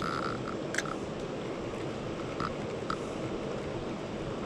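Fast-flowing river rushing steadily, with a few short high-pitched chirps over it.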